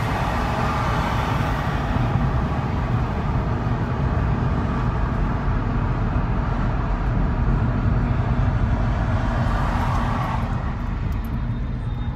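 Car driving, with steady road and engine rumble heard from inside the cabin; the higher part of the noise softens about ten seconds in.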